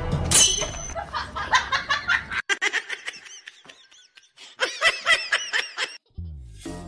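Background music that cuts off suddenly about a third of the way in, followed by high-pitched giggling laughter in quick repeated bursts, then new music starting near the end.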